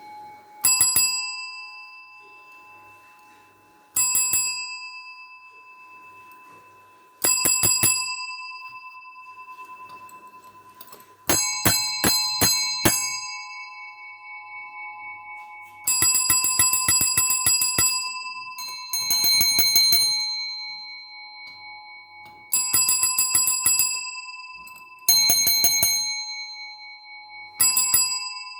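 A small bell rung again and again in quick bursts of rapid strikes, each burst ringing on and fading before the next, about nine bursts in all.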